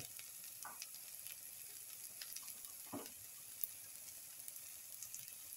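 Faint sizzling of oil in a pan of frying onions, with scattered small crackles and a brief soft sound about three seconds in.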